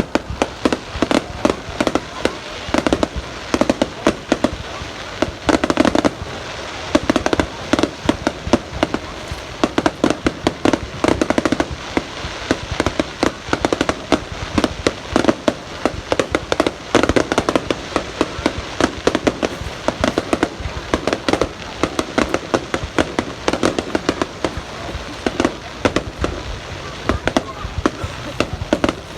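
Aerial fireworks going off continuously in a dense barrage: many sharp bangs and crackles a second, with no break.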